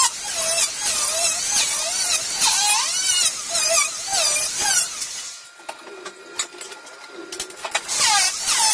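Handheld angle grinder working on welded steel, its whine dipping and rising over and over as it is pressed on and eased off the metal. About five and a half seconds in it drops back to a lower steady hum for a couple of seconds, then the swooping grind starts again near the end.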